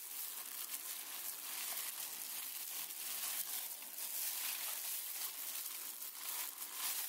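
Clear disposable plastic gloves crinkling and rustling as the hands work a raw, marinated whole chicken, prying the skin away from the breast; a faint, continuous rustle with small crackles.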